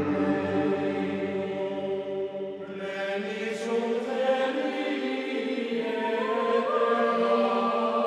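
Chant-style vocal music: several voices hold long notes whose pitch shifts slowly, in the manner of a Buddhist chant. A brighter, higher layer joins about three seconds in.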